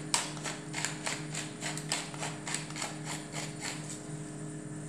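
Hand-twisted pepper mill grinding peppercorns in a rapid series of ratcheting clicks, about four a second, stopping shortly before the end.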